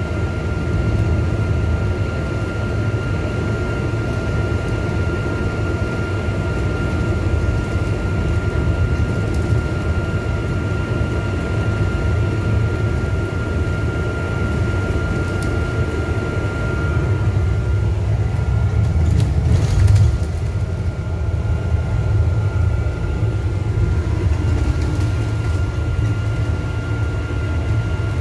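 Alexander Dennis Enviro 400 diesel double-decker bus heard from inside on the top deck: a steady low engine drone and road noise, with a thin high whine that drops out for several seconds past the middle. A brief louder knock about twenty seconds in.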